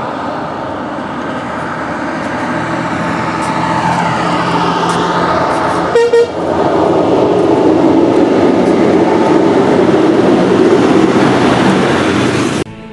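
Motor vehicle running close by, a loud steady engine-and-road noise that grows louder, with a sudden break about six seconds in.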